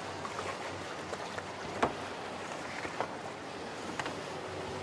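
Sailboat moving slowly under power: a steady low hum over wind and water noise, with a few sharp knocks on deck as fenders are handled, the loudest just under two seconds in and fainter ones about a second and two seconds later.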